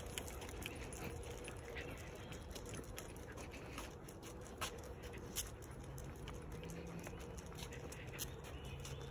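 Faint footsteps of a person and two small dogs on an asphalt path, with a few light, sharp clicks scattered through.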